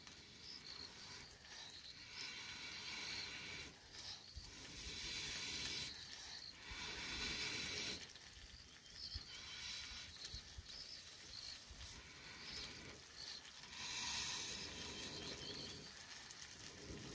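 Air blown through a metal blowpipe into a wood cooking fire: several long hissing puffs, a second or so each and a few seconds apart, fanning the embers so the fire flares up.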